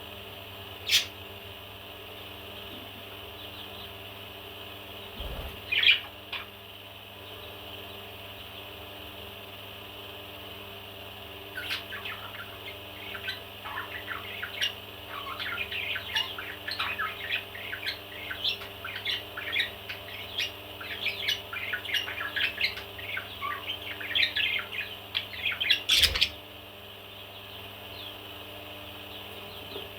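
A parrot chirping: one brief chirp about six seconds in, then a long run of rapid short chirps and whistles from about twelve seconds in, cut off by a sharp loud sound near the end. A steady hum underlies it.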